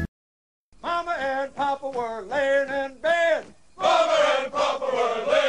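Men's voices chanting together in short sung phrases with brief pauses between them, starting after a moment of silence as the music cuts off.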